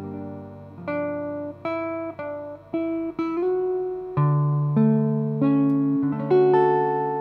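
1949 Gibson Super 400 archtop guitar with a DeArmond pickup, played as a slow run of about ten picked notes and chords, each left to ring and fade. The last chord, struck near the end, is held ringing.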